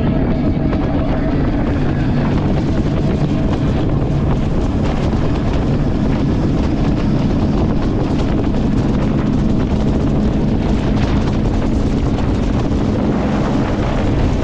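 Jet boat running at speed: a steady engine drone mixed with rushing water and spray, with wind buffeting the microphone.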